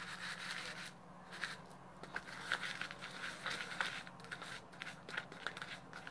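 Faint clicks and light scrapes of a small glass jar being handled and its oil mixture stirred. A soft hiss in about the first second gives way to scattered small ticks.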